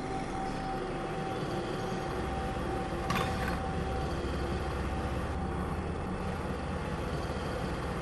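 Steady low rumble of heavy industrial machinery, with a short hiss about three seconds in.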